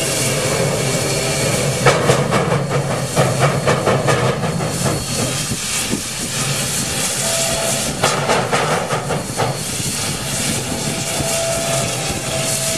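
Steam locomotive hissing steam steadily as it moves slowly, with uneven exhaust chuffs a couple of seconds in and again about two-thirds of the way through.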